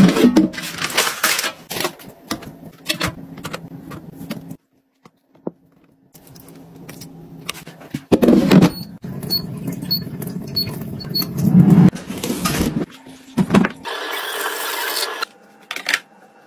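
Handling sounds of an air fryer: clicks and knocks as its drawer is worked by the handle. Midway there is a low steady hum with a run of five short high electronic beeps, and near the end a short burst of hiss.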